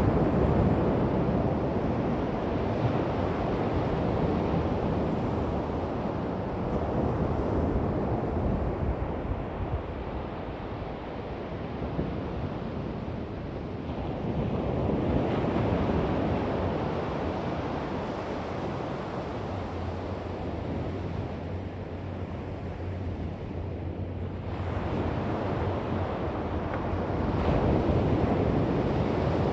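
Ocean surf washing onto a beach, swelling and ebbing every several seconds, with wind buffeting the microphone.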